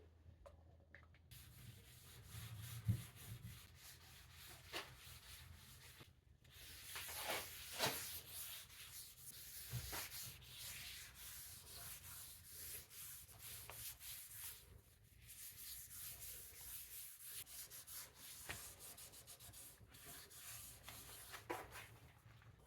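Faint sanding on wood: sandpaper rubbing across the surface in uneven strokes, a soft hiss with scattered scuffs.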